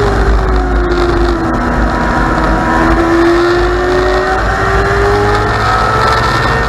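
Dwarf race car's motorcycle engine running at racing speed, heard onboard with wind rushing over the microphone. Its pitch sinks through the corner, lowest about three seconds in, then climbs as it accelerates down the straight.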